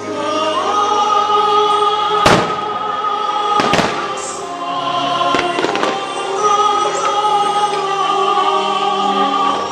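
Fireworks display set to music: long held musical notes play throughout while firework shells burst with sharp cracks, the loudest a little over two seconds in, then a pair near four seconds and two more a little later.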